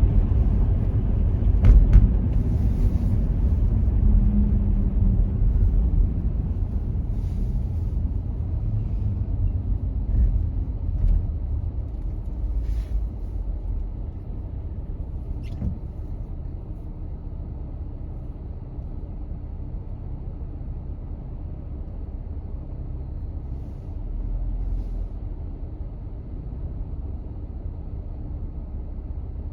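A car driving, with steady low road and engine rumble that eases to a quieter level after about six seconds. There is a sharp click about two seconds in and a few faint ticks later.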